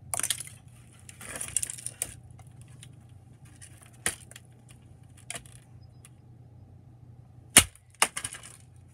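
Sharp knocks and crackling of a plastic clock radio being broken apart: scattered knocks with crackling near the start, and the loudest knock followed closely by another near the end.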